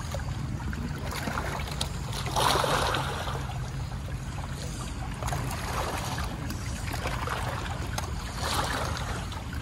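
Waterside noise: a steady low rumble with water washing in short surges, the loudest about two and a half seconds in.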